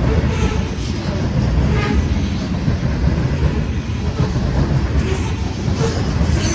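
Freight train of covered grain hopper cars rolling past close by: a steady low rumble of steel wheels on rail, with faint clanks every second or so.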